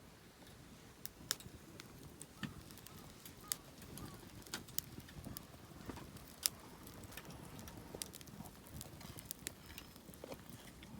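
Small wood fire crackling, with irregular sharp snaps and pops as the kindling catches.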